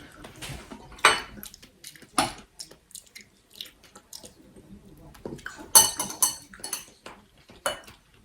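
Cutlery clinking and tapping against dishes while fruit is eaten: scattered sharp clicks, with a louder cluster of clinks about six seconds in.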